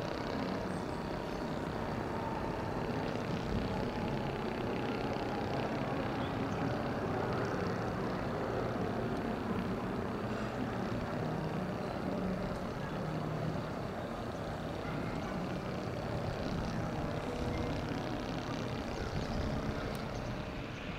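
Distant jet aircraft noise across an airport: a steady rushing roar with a faint steady tone, from a Boeing 777-200ER rolling out on the runway after landing.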